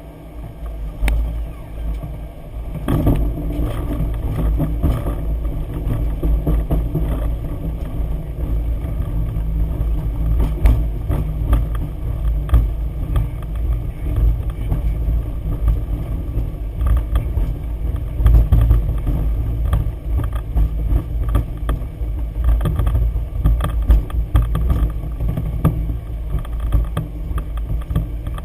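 Boeing 737-800 flight deck noise: a steady low rumble with frequent rattles and knocks, getting louder about three seconds in.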